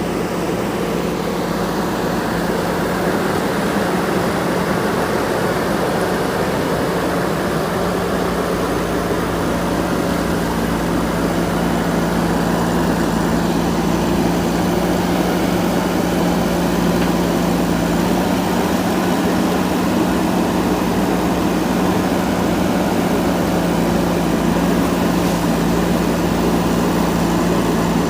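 JCB backhoe loader's diesel engine running steadily, its note stepping slightly a couple of times.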